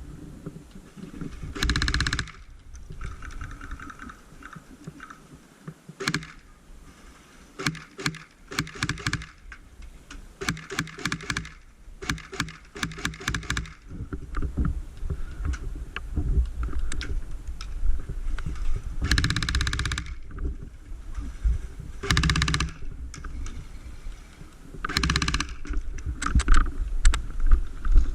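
Wind buffeting the microphone, with several runs of rapid, evenly spaced clicks typical of airsoft guns firing on full auto. Three louder noisy bursts of about a second each, near the start, in the middle and near the end, stand out above the rest.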